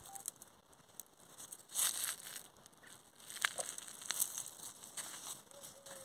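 Dry, withered watermelon vines and leaves rustling and crackling, with scattered sharp crinkly clicks and a louder burst of crinkling about two seconds in.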